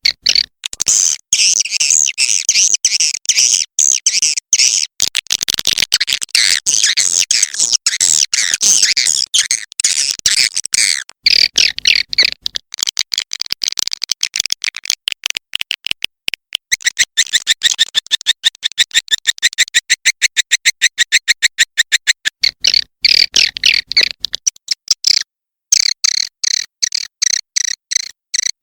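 Edible-nest swiftlet lure call played back as a recording: rapid, high twittering chirps. They are dense and overlapping for about the first ten seconds, then become more even pulsed chirps at about five a second, with a brief break near the end.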